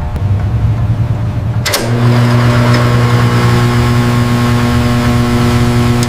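Steady low electrical hum with an even buzz, which becomes louder after a click a little under two seconds in.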